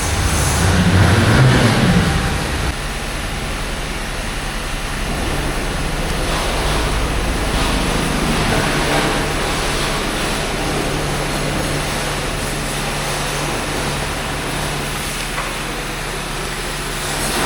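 Steady vehicle engine and traffic-like background noise with a low hum, louder for about the first two seconds.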